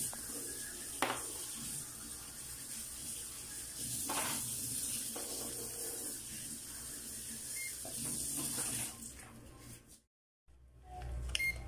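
Steady hiss of room noise with a couple of sharp clicks and a faint short beep; the sound drops out for a moment near the end.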